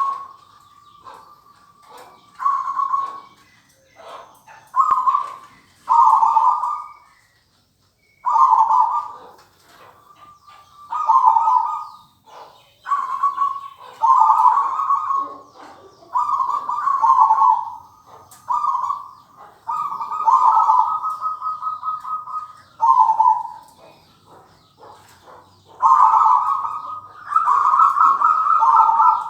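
Zebra dove (perkutut) cooing: a series of short, rolling coos, a few seconds apart at first, then coming closer together and running longer near the end.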